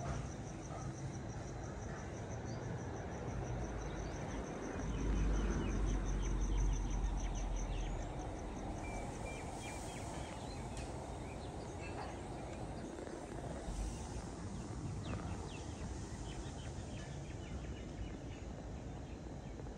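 Evening outdoor ambience: an insect trills in a rapid, even, high-pitched pulse, stopping about nine seconds in. Scattered short bird chirps follow. A low rumble rises about five seconds in and fades again around eight seconds.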